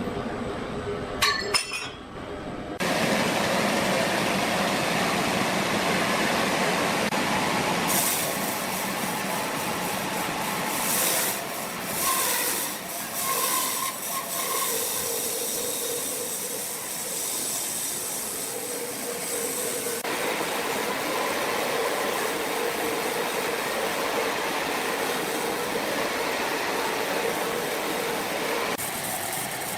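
Sawmill machinery running with a steady, noisy whir, typical of a large saw working a log. A few sharp clicks come in the first two seconds, and the sound gets louder about three seconds in.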